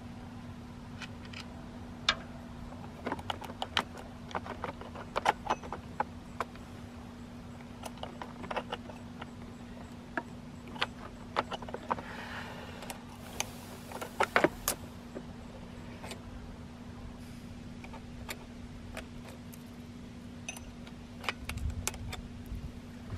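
Small metallic clicks, clinks and knocks of a chainsaw being worked on by hand: a bar wrench on the side-cover nuts, the cover coming off and the derailed chain being handled back onto the bar and sprocket. A steady low hum runs underneath.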